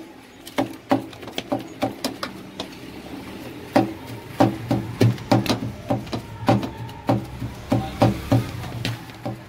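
Wooden pestle pounding boiled chicken and potato mash in a steel bowl: a steady run of dull knocks, about two a second, with a brief lull about three seconds in.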